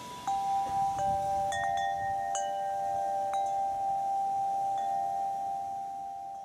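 Chimes struck one note at a time at uneven intervals, each ringing on so the notes overlap into a sustained chord that fades out near the end.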